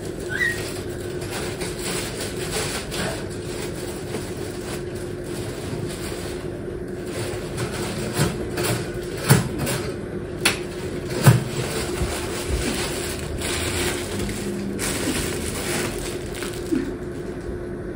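Kitchen cooking sounds: a steady appliance hum with an even hiss, over scattered knocks and clatter of cookware and utensils, the sharpest knocks in the middle.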